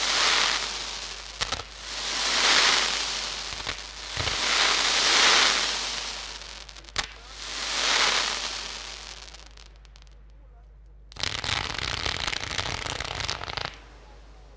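Fireworks display: aerial shells bursting into crackling, hissing stars that swell and fade about every two to three seconds, with a few sharp bangs between them. After a short lull, a dense burst of crackling starts about eleven seconds in and cuts off suddenly after two and a half seconds.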